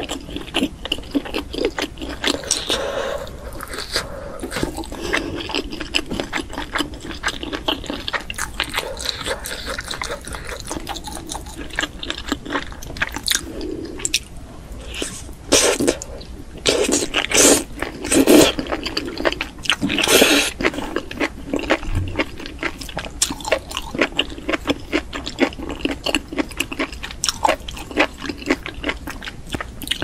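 Close-miked chewing of enoki mushrooms in spicy sauce: a dense run of wet, crunchy mouth clicks, with louder wet slurps around the middle as strands are sucked in.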